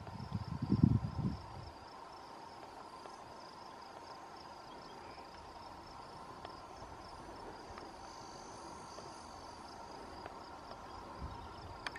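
Steady, high-pitched insect chorus buzzing without a break, with a brief low rumble in the first second and a half.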